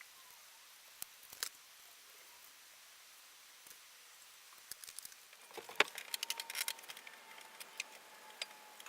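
Light clicks and taps of small hard objects being handled: two sharp clicks about a second in, then a busier run of clicks from the middle on, with a faint steady tone under the later part.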